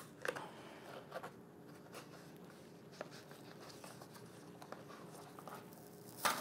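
Faint rustling and scraping of a paperboard box as its flap is slowly pried and peeled open, with a few soft clicks and a louder crackle near the end.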